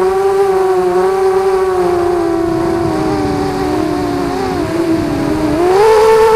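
ZMR250 racing quadcopter's brushless motors and propellers whining steadily. The pitch sags slowly and briefly splits into two tones about two-thirds through, then rises sharply near the end as the throttle opens.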